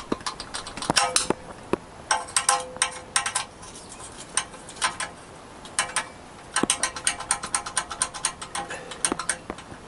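Hand ratchet clicking in runs of quick clicks, about seven a second, with short pauses between, as it undoes exhaust header nuts; a few separate knocks about a second in.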